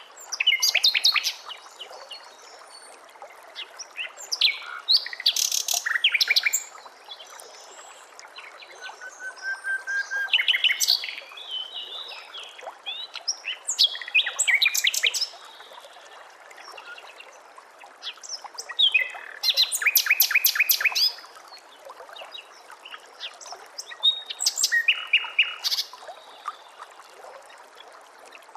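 Songbird singing in bursts of rapid, high, repeated notes and trills, one burst every four to five seconds, over a faint steady hiss.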